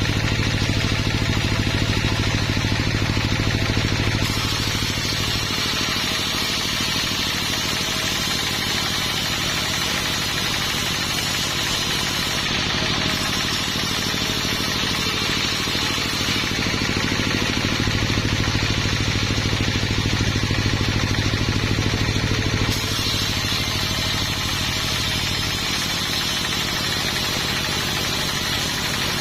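An engine running steadily at a constant speed. Its sound shifts abruptly about four seconds in and again near the end.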